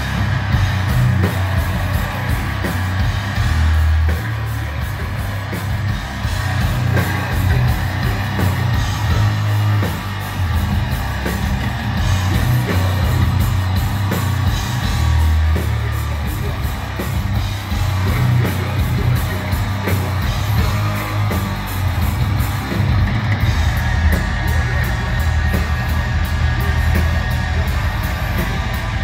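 Death metal band playing live: heavily distorted electric guitars, bass guitar and drum kit, with a harsh screamed vocal.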